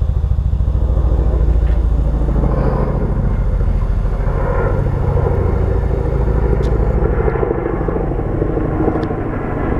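A CH-47 Chinook tandem-rotor military helicopter flying past, its two rotors making a loud, steady, fast beat that dips a little near the end.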